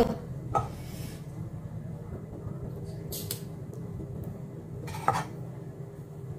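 Metal kitchen tongs clinking against cookware a few times as grilled eggplants are lifted onto a stone mortar. The loudest clink comes about five seconds in, over a steady low hum.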